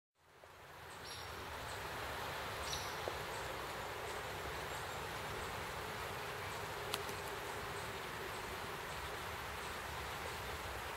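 Steady rush of a shallow river running over rocks, fading in over the first second or so, with faint high chirps now and then and a single sharp click near the middle.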